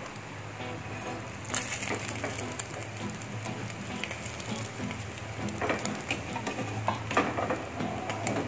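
Pork belly slabs deep-frying in hot oil, a steady sizzle with crackles. Louder spells of crackling come as a metal spatula ladles the boiling oil over the pork skin to make it blister and puff.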